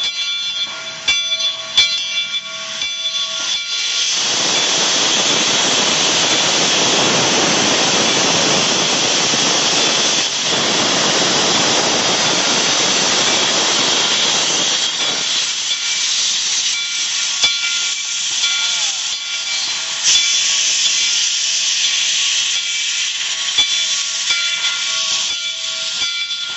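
Steam locomotive venting steam: a loud, rushing hiss sets in about four seconds in and thins to a quieter, higher hiss about fifteen seconds in, which carries on over a steady whine. A few sharp knocks come in the first two seconds.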